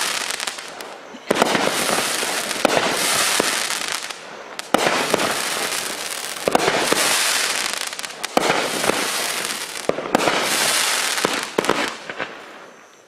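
Consumer fireworks from a Miracle Fireworks assortment going off in a series of about seven shots, roughly every one and a half to two seconds. Each shot is a sharp report followed by a long crackling hiss that dies away.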